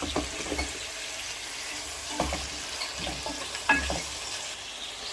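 Chopped onions frying in hot oil in a pan, with a steady sizzle. A spoon stirring them scrapes and knocks against the pan every second or so.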